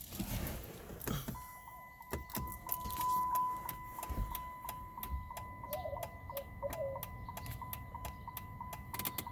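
2011 Dodge Challenger turn signal indicator ticking evenly, about two ticks a second, over a steady high warning tone. The new rear bulb is working.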